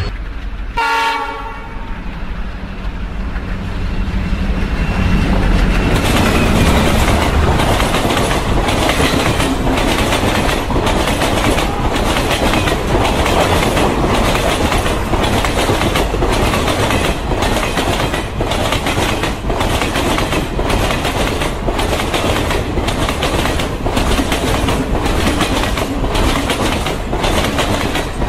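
A train horn sounds briefly about a second in. Then a freight train of tank wagons rolls past close by, with a loud rumble and the wheels clacking over the rail joints in a steady rhythm.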